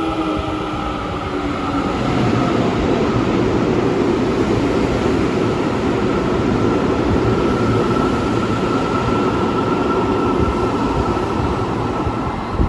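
Electric commuter train running on the line: its motor whine falls in pitch and fades in the first two seconds, then a steady rumble of wheels on rails carries on.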